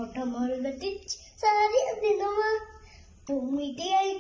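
A young girl singing a song, unaccompanied, in three short phrases with brief pauses between them and held notes that glide in pitch.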